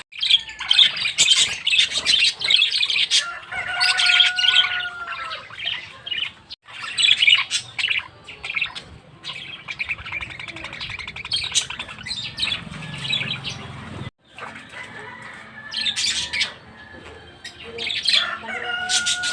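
A flock of lovebirds chirping and squawking together in a dense, continuous high chatter.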